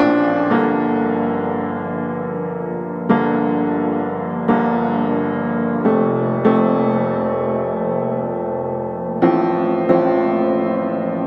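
Background piano music: slow chords struck every one to three seconds and left to ring.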